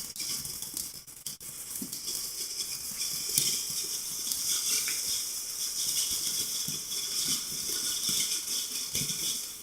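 A firework hissing steadily with dense crackling, with scattered dull pops underneath.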